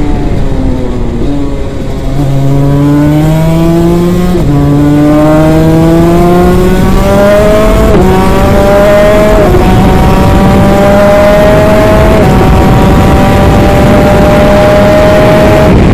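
A 250cc twin-cylinder two-stroke superkart engine heard onboard. Its note falls for about two seconds, then the revs climb through four upshifts. Each shift is a sudden drop in pitch before it rises again, and the climb gets slower in the higher gears.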